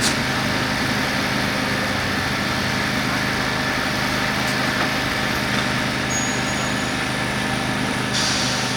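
Fire engine's diesel engine running steadily, with a hiss joining near the end.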